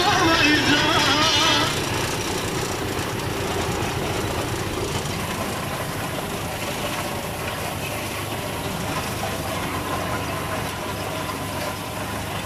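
Tractor engine running steadily at a slow working pace while pulling a hay rake through cut lucerne. A louder wavering tone rides over it for the first couple of seconds.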